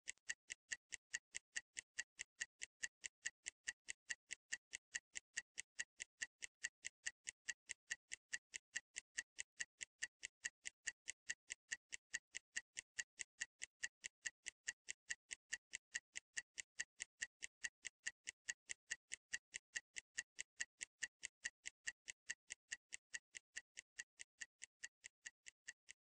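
Workout interval timer ticking steadily through a recovery break, about three sharp ticks a second, counting down the rest before the next exercise.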